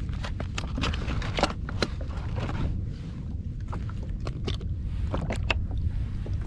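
Irregular light clicks and taps from handling food and cooking gear, a few each second, over a low steady rumble.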